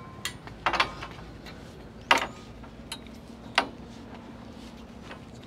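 Irregular knocks and clanks of feet and hands on the rungs of an aluminium ladder as a person climbs it, about five sharp strikes, the loudest about two seconds in.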